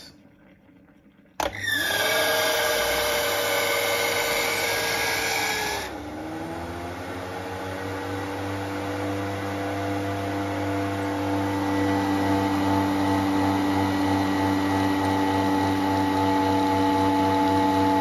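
Electric motor of a Bosch espresso cup centrifugal coffee machine spinning up its brewing centrifuge. It starts abruptly about a second and a half in and settles into a steady whine. About six seconds in the pitch and level dip, then slowly build again.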